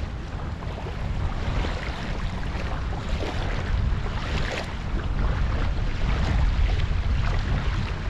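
Wind buffeting the microphone over a steady hiss of rain, growing somewhat louder in the second half.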